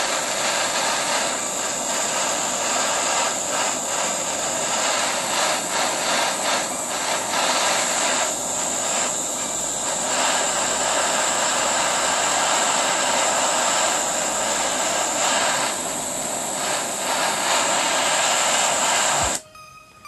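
Handheld butane torch flame hissing steadily as it heats the banger of a dab rig, then shut off suddenly about a second before the end.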